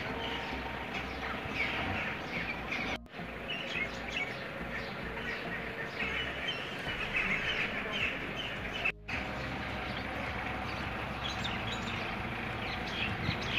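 Outdoor ambience: many small birds chirping over a steady low rumble of vehicle traffic, the sound cutting out briefly twice.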